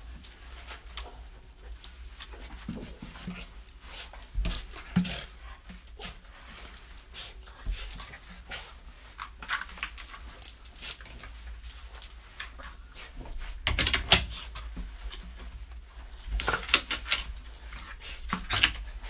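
Border terrier rubbing and rolling its wet coat along a bristly coir doormat to dry off: irregular scratchy scuffing that comes in bursts, loudest about two-thirds of the way through and again near the end, with the light jingle of its collar tag.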